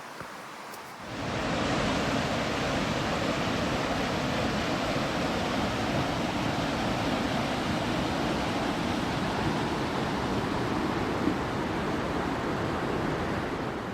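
Rushing water of the Cross River: a steady, loud rush that starts abruptly about a second in and cuts off just before the end.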